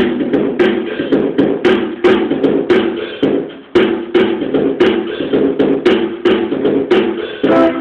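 Guitar strummed in a steady rhythm, with sharp percussive strokes about two to three times a second over the sustained chords.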